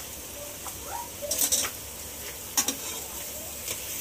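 A spoon stirring and scraping ground spices frying in hot oil in a cooking pot, over a steady sizzle. A few louder scrapes of the spoon against the pot come about a second and a half in and again near two and a half seconds.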